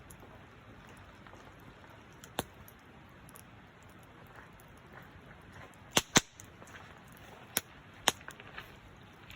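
Campfire wood popping: a few sharp snaps over a faint steady hiss, two of them close together about six seconds in.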